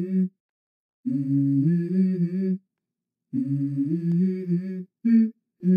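A voice humming a short melody in repeated phrases about a second and a half long, with complete silences between them, the pitch stepping up and down within each phrase.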